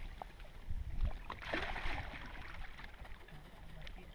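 Water splashing at the side of a small boat as a hooked fish thrashes at the surface and is grabbed by hand, with the biggest splash about one and a half seconds in.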